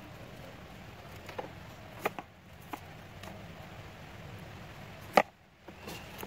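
Handling noise from wrapping a paper flower's stem in green floral tape: a few light clicks and taps from the tape roll and stem, the loudest about five seconds in.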